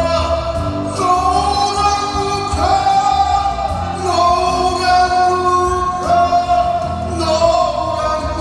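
A man sings live into a handheld microphone, amplified through the stage PA, over instrumental accompaniment. He holds long notes of about a second each, sliding up into each new pitch.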